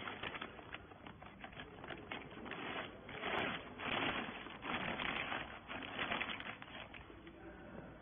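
Clear plastic bag crinkling and rustling as it is pulled over a compressed bale of rags and handled. The crackling is irregular, with louder bursts around the middle.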